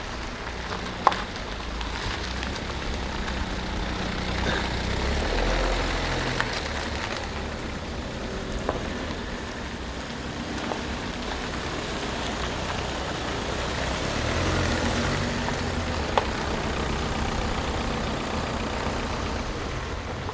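Passenger cars running at low speed and idling as they pull up and manoeuvre, with steady engine rumble and tyre noise on wet road. A couple of sharp clicks or knocks come about a second in and again late on.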